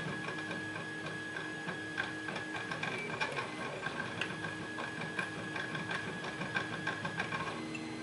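Light, scattered clicks and ticks of tweezers and small brass lock pins being handled in a plastic pin tray, over a steady background hum.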